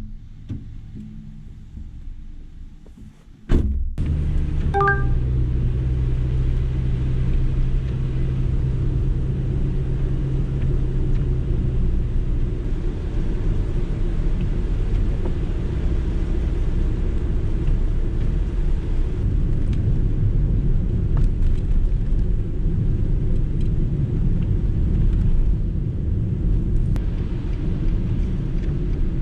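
Steady low rumble of a car running, beginning suddenly about three and a half seconds in, with a short beep about a second later.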